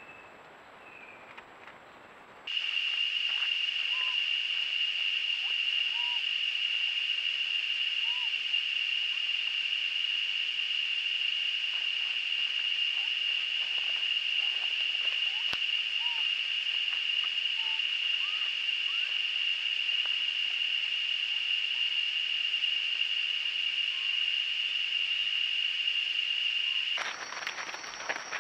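A loud, steady, high-pitched insect drone starts abruptly a couple of seconds in and cuts off about a second before the end, with faint short whistled notes, likely from a bird, repeating beneath it every second or two. Near the end it gives way to a higher, finer chirring of night insects.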